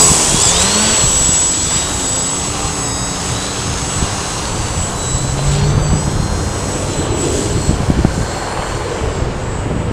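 Electric motor and propeller of a small foam RC 3D aerobatic plane (a Yak 54) running in flight, a steady high whine whose pitch wavers with the throttle, over wind noise on the microphone. It is loudest at the start as the plane passes close, then settles. The owner thinks the motor is getting a little burnt out.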